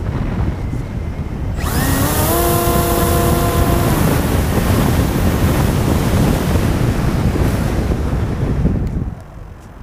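Electric motor and propeller of an FPV model plane, heard through its onboard camera's microphone over heavy wind rush. About one and a half seconds in, the throttle opens: a motor whine rises in pitch and holds, under loud propeller and air noise that falls away sharply near the end.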